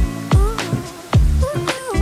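Background music with a steady beat and a sliding melody line.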